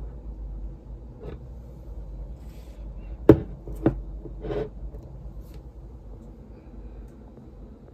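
A flower vase being set down on a desk top: two sharp knocks a little over half a second apart, then a softer one, over a low steady hum.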